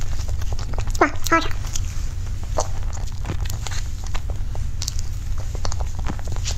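Close-up eating sounds: a metal fork scraping and tapping in a foil dessert cup while soft cream dessert is chewed, with scattered small clicks and two short pitched squeaks about a second in, over a steady low hum.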